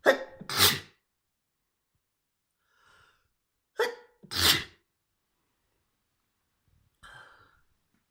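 Two hard sneezes from a woman, about four seconds apart, each a short catch of the voice followed by a loud spray of breath, brought on by tickling her nose with a feather. A fainter breath follows near the end.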